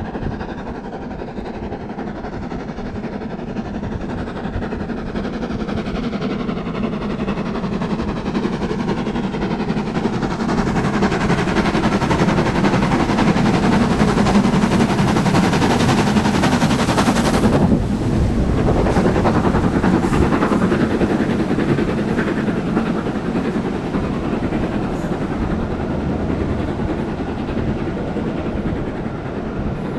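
Steam locomotive 45690 Leander, an LMS Jubilee-class three-cylinder 4-6-0, working hard at speed, its exhaust beating in a rapid, continuous chatter. The sound grows louder towards the middle, dips briefly just past halfway, then carries on.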